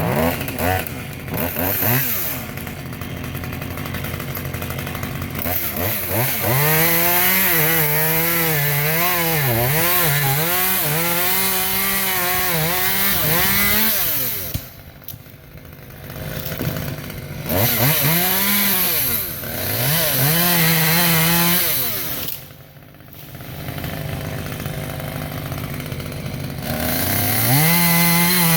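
Chainsaw cutting through a tree limb. The engine pitch wavers up and down as it works the cut, and it drops back to a lower idle twice before revving up again near the end.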